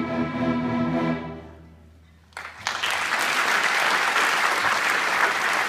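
A student string orchestra holds its final chord, which fades away after about a second. About two and a half seconds in, the audience starts applauding, loud and steady.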